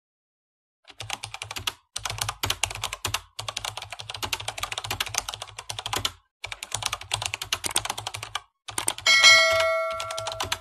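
Keyboard-typing sound effect: rapid clicking in several runs with short breaks between them, then a bright, ringing ding about nine seconds in, the loudest sound, fading slowly.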